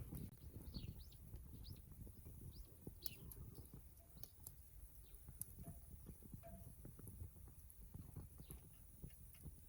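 Faint, irregular crackling and ticking of a small wood fire, with a few short high squeaks among the pops.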